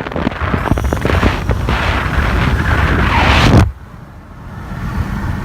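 Turbocharged Volvo S60 engine at full throttle, accelerating hard with a rising squeal from the turbo, then cutting off suddenly about three and a half seconds in as the throttle is released, leaving a quiet steady engine hum. The owner calls the squeal odd and not normal, a turbo fault he says shows up when the car is semi-cold.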